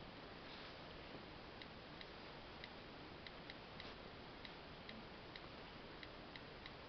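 Faint keyboard clicks from an iPod Touch 4th generation as its on-screen keyboard is typed on: about fifteen short ticks, roughly three a second, starting about a second and a half in.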